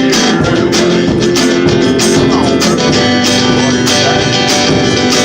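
One-man band playing an instrumental stretch of a song: a strummed guitar over a steady beat of percussion hits, about two to three a second, with no singing.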